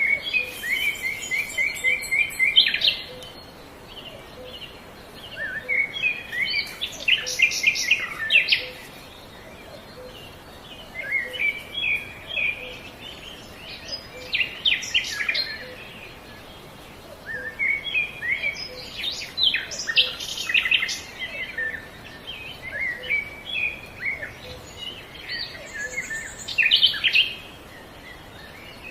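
A bird singing in repeated phrases of quick high chirps and short trills, a phrase every few seconds with brief pauses between them.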